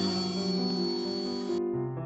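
Background piano music with a steady beat of sustained notes. Under it, the high whine and hiss of a shop power tool cuts off abruptly about one and a half seconds in, leaving only the piano.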